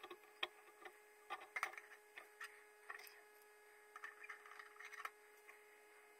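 Faint, scattered light clicks and taps as stainless steel spoons and metal alligator clips are handled against the rim of an enamel bowl, over a steady faint hum.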